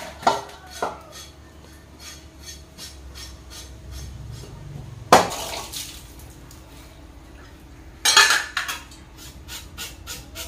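Kitchen clatter of metal utensils knocking against a stainless steel basin: scattered clinks and knocks, a loud knock about five seconds in and a burst of several knocks about eight seconds in.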